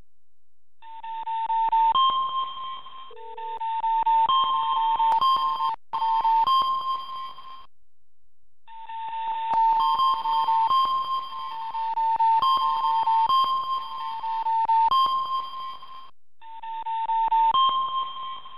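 Electronic two-tone alert from a live seismic monitor, stepping between two close pitches in swelling bursts of a few seconds with short breaks. It signals seismic waves from the magnitude 7.2 Haiti earthquake being recorded by the stations.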